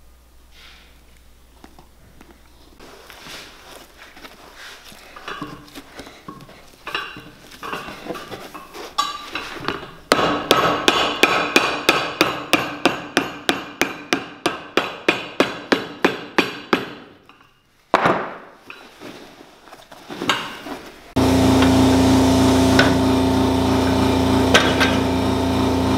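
A hammer striking a cowboy boot's freshly glued leather sole in quick even blows, about four a second for some seven seconds, to set the glue. About five seconds before the end an air compressor starts and runs with a steady hum, filling its tank.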